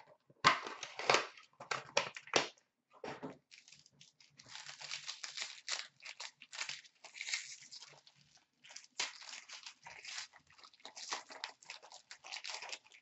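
Packaging of a hockey card box being torn open by hand: a few sharp rips in the first seconds, then long spells of crinkling and tearing of a foil wrapper.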